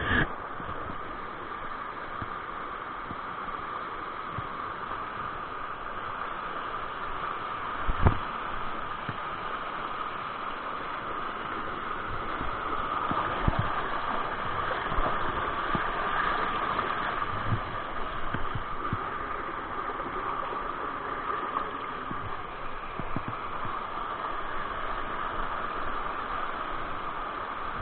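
Fast river water rushing and churning over boulders, a steady rush, with a few dull knocks, the loudest about eight seconds in.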